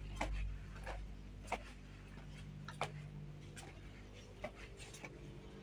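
Quiet indoor room tone: a steady low hum with a few faint, irregular clicks.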